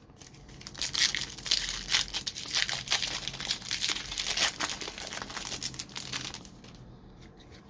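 A foil trading-card pack wrapper crinkling and tearing as it is ripped open and handled, a dense crackle of small clicks lasting about five seconds.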